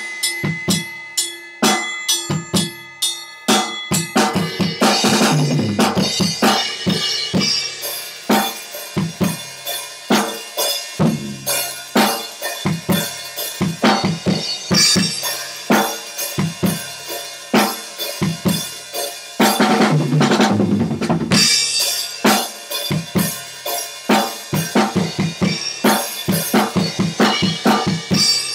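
Sonor acoustic drum kit played live: a busy beat on bass drum, snare and toms with cymbals, and crash cymbals several times, notably about 5, 15 and 20 seconds in.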